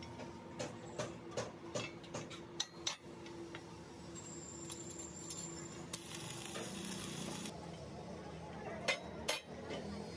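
Stick (shielded metal arc) welding: a short tack weld on a steel pipe bushing set on a steel plate, the arc crackling and sizzling for about a second and a half. Before it come light metal clinks and taps as the steel parts and a steel square are set in place, and near the end two sharp metal knocks.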